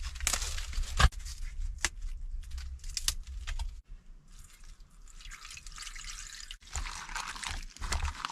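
Pot of noodle water cooking on a charcoal heater stove: a few sharp knocks and clicks at the pot as cabbage is added, then water bubbling and dripping from about five seconds in.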